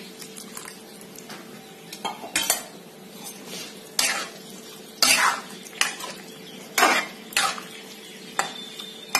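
Steel spatula scraping and clinking against a metal pan as cut flat beans in a watery masala are stirred, in irregular strokes about once a second, over a steady faint hum.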